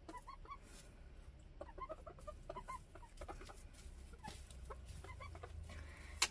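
A small flock of young hens (pullets) clucking softly, with many short, scattered clucks from several birds at once.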